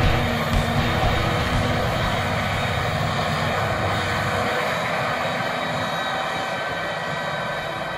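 Claas Jaguar 980 self-propelled forage harvester running under load while chopping wheat: a steady mechanical drone with several steady high tones, growing slowly fainter as it pulls away.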